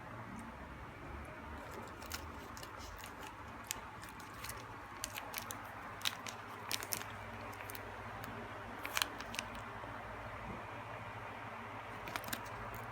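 Snacks being handled: scattered sharp crackles and clicks, clustered in the middle and loudest about nine seconds in, over a steady low hum and hiss.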